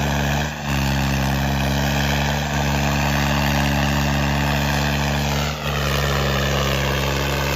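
Tractor diesel engine running steadily at high revs under heavy load during a tractor tug-of-war. About five and a half seconds in, a higher whine slides down in pitch.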